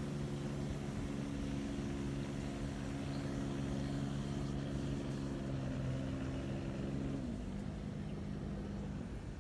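An engine's steady, even-pitched drone that drops lower about seven seconds in and fades out near the end.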